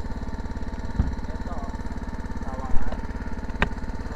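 A small engine running steadily with a fast, even chugging beat, with two sharp knocks, one about a second in and one near the end.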